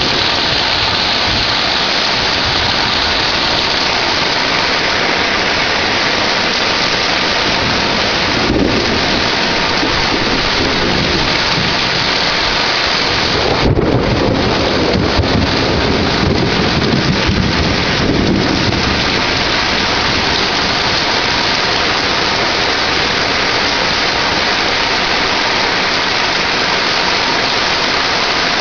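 Heavy thunderstorm rain pouring steadily. Low rumbles of thunder swell about a third of the way in and again around the middle, the second one starting with a sharper crack.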